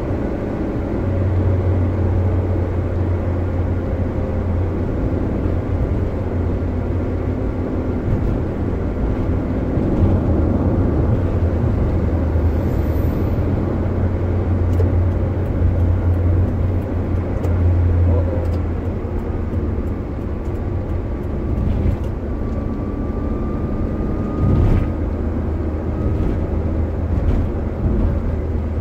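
Daihatsu Gran Max van's cabin at steady highway speed: a continuous low engine drone with road and tyre noise, heard from inside. A few small clicks come through in the second half.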